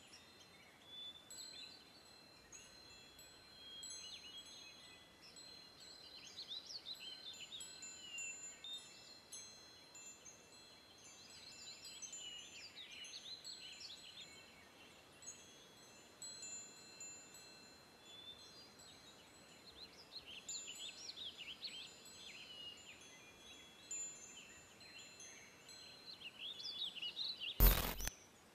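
Faint songbirds warbling in quick chirping phrases that come and go, over soft steady high chime-like tones. A brief loud rush of noise breaks in near the end.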